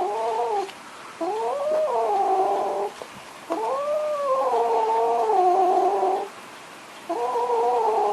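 Domestic cat yowling: four long, drawn-out wailing calls, each rising and falling in pitch, with short pauses between them.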